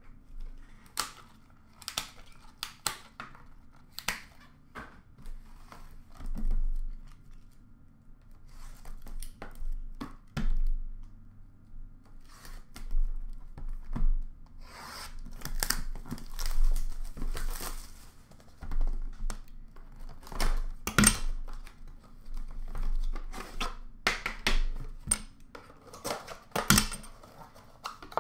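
Plastic wrapping tearing and crinkling, with irregular rubs, clicks and knocks as a metal trading-card tin is unwrapped and handled on a glass counter; one sharp knock about two-thirds of the way through is the loudest.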